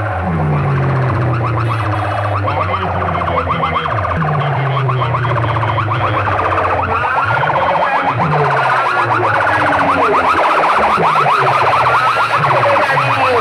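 Electronic siren and alarm-style effects played loudly through a large DJ sound-box system: fast warbling tones over a low bass that slides downward, the warble getting stronger in the second half while the bass breaks into short repeated pulses.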